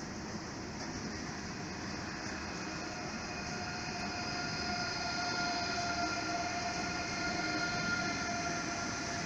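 ICE high-speed trains moving slowly on the station tracks: a steady running rumble with a whine of several steady tones that grows louder from about three seconds in.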